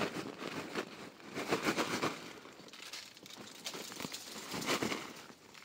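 Irregular crackling and rustling in short clusters, louder about a second and a half in and again near the end.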